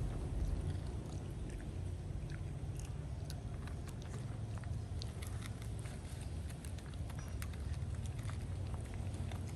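A dog chewing food, with irregular sharp crunching clicks, over a steady low rumble.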